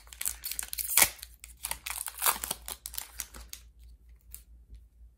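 Foil booster pack wrapper being torn open and handled: a run of crinkly crackles, the sharpest about a second in, thinning out after about three and a half seconds.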